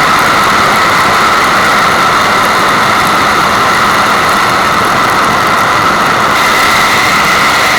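Rushing water, heard as a loud, even hiss that holds steady throughout.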